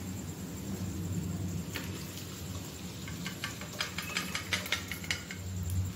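Boiled dried peas poured from an aluminium pressure cooker into a pan of gravy, heard as a run of sharp clicks and knocks of the cooker against the pan about three to five seconds in, over a steady low hum.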